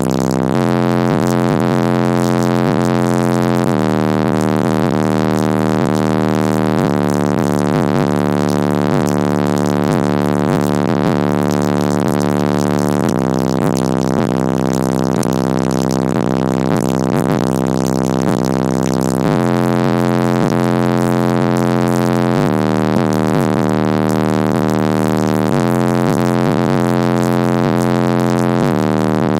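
Heavy bass music played through a car audio system of Audio Que 15-inch subwoofers at half volume, the subwoofers still being broken in. Loud, deep sustained bass notes shift pitch every few seconds.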